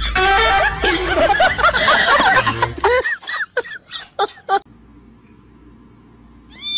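Several people laughing hard together for about three seconds, breaking into a few short separate bursts of laughter before it dies away.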